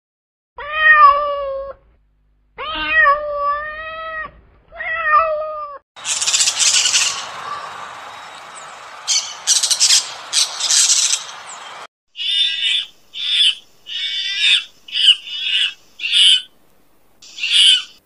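A cat meowing three times, each meow drawn out. Then a flock of plum-headed parakeets screeching over a steady hiss, followed by a run of about nine short, high calls.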